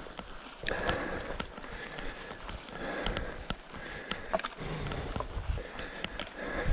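A mountain-bike rider breathing hard, about one breath a second, with small clicks and rattles from the moving bike.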